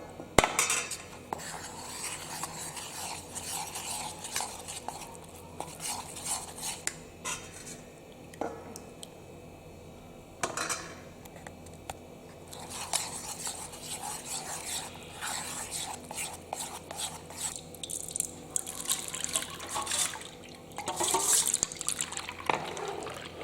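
A utensil stirring and scraping in a cooking vessel, with irregular clinks and scrapes in bursts and a sharp knock about half a second in, as dodol agar ingredients are mixed.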